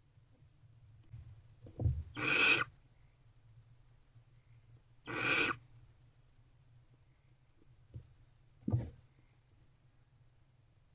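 Two harsh, hissing barn owl screeches, each about half a second long and a few seconds apart, with a few soft bumps of movement in between.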